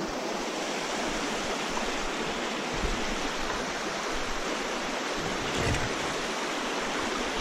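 A creek's flowing water running as a steady, even rush close by, cutting off suddenly at the end.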